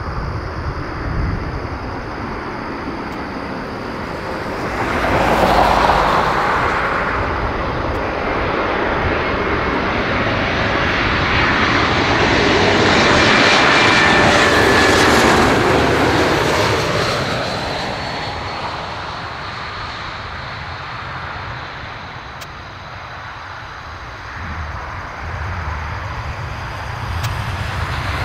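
Airbus A220-300's Pratt & Whitney PW1500G geared turbofans on final approach: a rushing jet noise with a whine that builds to its loudest as the airliner passes low overhead, then falls in pitch and fades as it descends to the runway. A brief louder rush of noise comes about five seconds in.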